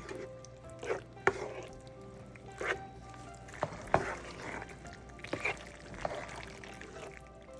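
Background music with held notes, over intermittent kitchen clatter: about seven sharp clinks and knocks of utensils at irregular intervals, the loudest about four seconds in.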